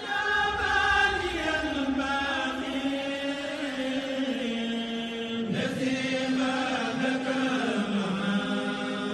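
Chanted vocal music: a voice holds long, slowly sliding notes, and a new phrase begins about halfway through.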